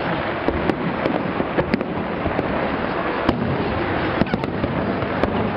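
Large aerial fireworks display: a dense, continuous rumble of shell bursts with sharp cracks and pops at irregular moments throughout.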